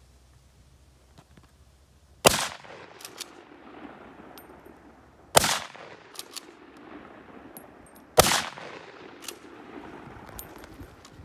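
Three rifle shots from an 1889 Schmidt-Rubin straight-pull rifle firing 7.5x55 Swiss ammunition, about three seconds apart, each echoing away. Each shot is followed within a second by a pair of quick metallic clicks as the straight-pull bolt is worked.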